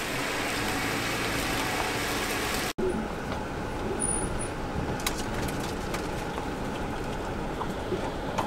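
Jeep Wrangler JK driving slowly along a leaf-covered dirt trail: the front tire rolls close by over wet leaves. After a cut about three seconds in, steady engine and road noise is heard inside the cabin, with a few sharp clicks and knocks over the bumps.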